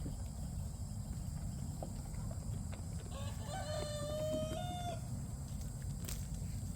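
A rooster crowing once, a single held call of about two seconds starting about three seconds in, over a steady low rumble.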